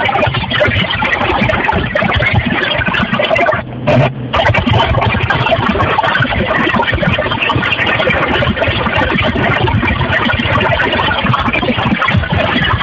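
Harsh, continuous rasping buzz of an unidentified signal received on an FM radio station and played through a home stereo, fast and chattering like a running motor, with a brief dropout about four seconds in.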